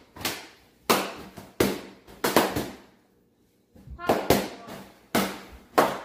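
Latex balloons popped one after another with barbecue skewers: about eight sharp bangs, each with a short echo of the room, with a pause around the middle.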